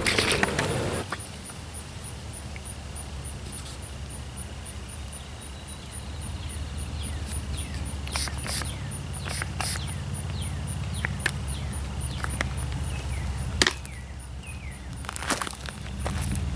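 Outdoor ambience: a steady low rumble with scattered sharp clicks and short, descending bird chirps.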